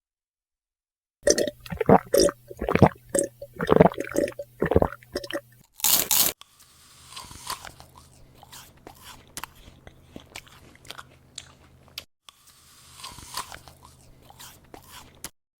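Loud crunching and chewing, a rapid run of crisp cracks and clicks, broken by a short loud rush of noise about six seconds in; after that the chewing goes on more quietly as soft crackling.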